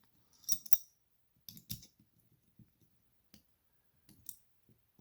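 A few scattered small clicks and taps of metal parts being handled as a cold shoe adapter is screwed onto a photographic super clamp's quarter-inch threaded hole.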